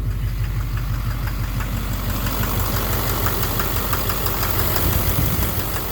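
Duramax LMM 6.6-litre V8 turbo-diesel idling in gear against the brakes, with a rapid, regular knocking tick over the engine rumble, clearer from about two seconds in. The knock is very loud in drive or reverse; the owner suspects an injector or a cracked flexplate.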